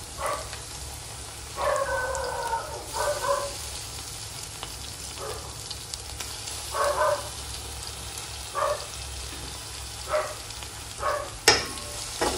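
Chopped onion and tomato sizzling in hot oil in a kadhai, stirred with a spatula. Several short, high pitched squeaks cut in now and then, and a sharp clack sounds near the end.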